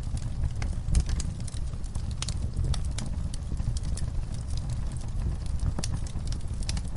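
Wood fire burning in a fireplace: irregular sharp crackles and pops from the burning logs over a steady low rumble of the flames, with a louder pop about a second in.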